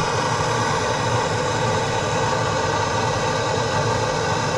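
Hand-held propane torch burning with a steady, even rushing flame, aimed up into a wood cook stove's firebox to pre-warm the cold flue and get the draft going.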